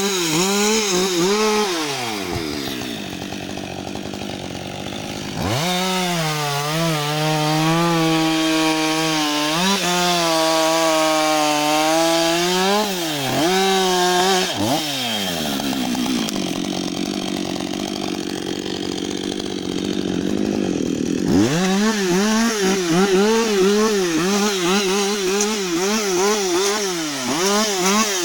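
Husqvarna 562XP two-stroke chainsaw cutting a fallen tree trunk. It runs at full throttle, drops to idle about two seconds in, revs up and cuts again for several seconds, falls back to idle around the middle, then revs up once more near the three-quarter mark and cuts with a wavering pitch as the chain bites.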